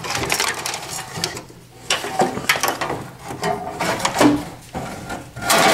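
Old 12-volt ride-on-toy battery being worked loose and pulled out of a scratch-built RC bulldozer: a run of irregular knocks, scrapes and clatter of the battery box and body panels.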